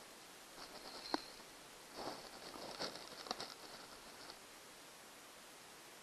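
Faint scratching and clicking of small hand tools and tiny screws against a MacBook Air keyboard's metal frame. There is one sharp click about a second in and a cluster of clicks near three seconds.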